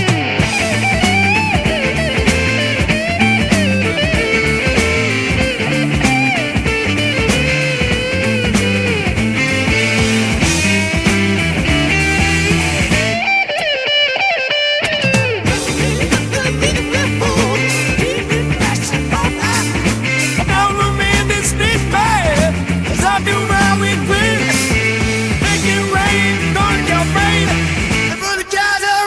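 Instrumental psychedelic rock: a lead electric guitar plays bending, wavering notes over bass and drums. Near the middle the band drops out for about two seconds before coming back in.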